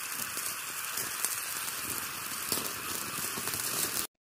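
Old-film crackle sound effect: a steady hiss with scattered pops and clicks, cutting off abruptly about four seconds in.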